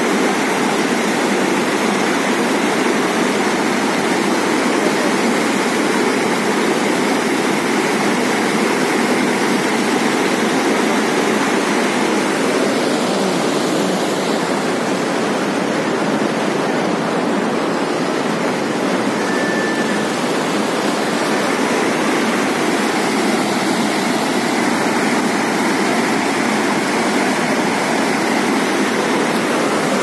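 River water rushing and churning over a rock shelf in white-water rapids: a loud, steady rush.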